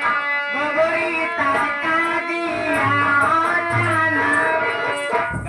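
Instrumental music: a melody that slides and bends from note to note, in the manner of a plucked, electric-sounding string instrument. A low bass part comes in about halfway through.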